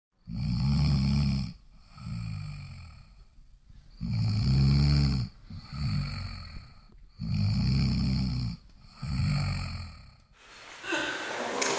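Loud snoring: three long snores about three and a half seconds apart, each followed by a quieter, shorter breath.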